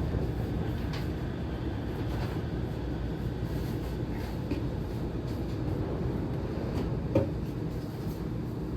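Cabin noise inside a Shonan Monorail suspended car: a steady low rumble, with a light knock about one second in and a sharper one about seven seconds in.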